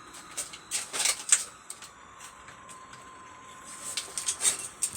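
HO scale model train layout: a faint steady whine from a running model locomotive's motor, with two spells of scattered clicks and clatter, one near the start and one near the end.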